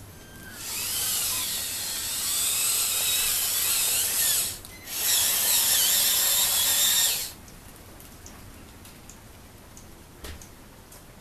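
Electric drive motor and gearbox of a radio-controlled Scania 8x8 dump truck model whining as it drives, the pitch rising and falling with speed, in two spells of a few seconds with a short break between. A faint click near the end.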